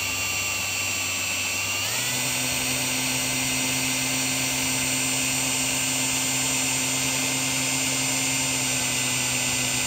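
Cordless drill running steadily as it drills out a stone chip in a car windscreen with a fine bit. Its whine steps up in pitch about two seconds in, then holds steady.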